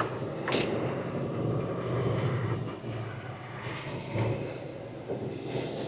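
Diesel engine of a semi truck running at low speed, a steady low hum heard from inside the cab.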